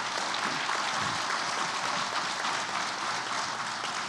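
Audience applauding, a dense patter of many hands clapping that begins to thin near the end.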